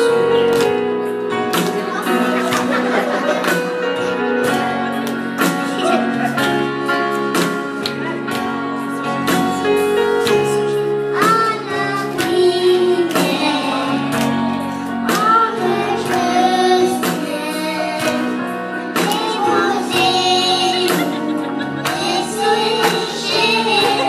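Children singing a Christian song into microphones, accompanied by an electronic keyboard with a steady beat; the sung melody comes through more strongly in the second half.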